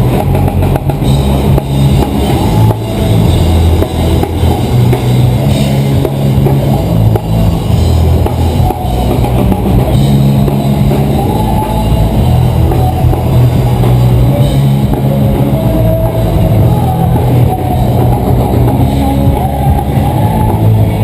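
Rock music with a drum kit, bass and electric guitar, loud and steady throughout.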